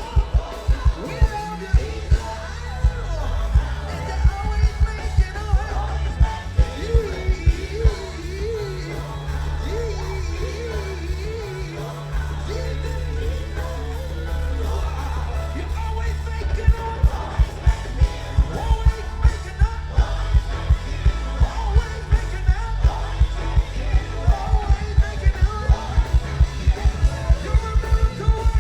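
Live gospel band playing an upbeat song with singing over a heavy bass line. A kick drum pounds out the beat at the start, eases off through the middle, and comes back strong for the last ten seconds or so.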